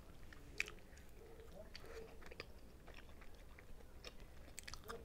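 A person chewing a mouthful of Adjarian khachapuri, a soft cheese-and-egg bread, close to a lapel mic: faint, wet mouth sounds with small scattered clicks, one sharper click about half a second in.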